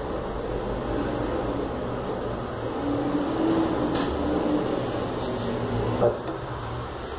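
Steady low mechanical hum, with a faint click about four seconds in and a short sharp knock about six seconds in.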